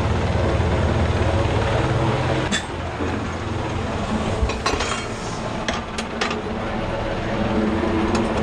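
A steady low engine drone, which drops away about two and a half seconds in. A scattered string of sharp metallic clinks and knocks follows as the rescue daughter boat sits in the mother ship's metal stern slipway.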